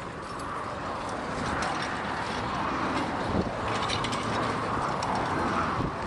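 Horse-drawn plough at work behind a pair of heavy draught horses: the metalwork of the plough and harness rattling and clinking steadily as they pull, with a cluster of sharper clinks about halfway through.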